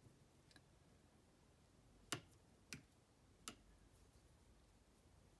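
Watercolour brush tapping against the paint palette while picking up paint: three light clicks over about a second and a half, the first the loudest.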